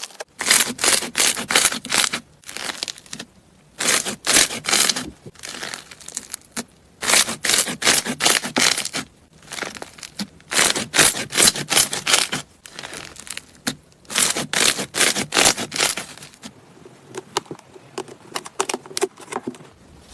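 Slime being squeezed and pressed by hand, crackling and popping in quick bursts that come in clusters of one to two seconds with short pauses between, fainter near the end.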